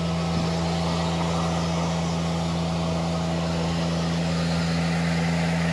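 Engine idling steadily: an even low hum that does not change.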